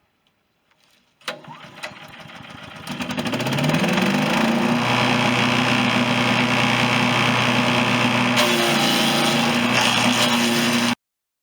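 A chipper shredder's 212cc Predator single-cylinder engine starting, running at low speed for about a second and a half, then revving up to a steady high-speed run. It cuts off suddenly near the end.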